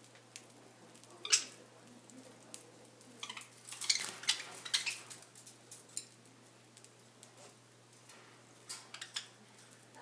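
Budgerigars pecking and husking seed in plastic feed dishes: scattered sharp clicks and small rattles, busiest in the middle, with a few more near the end.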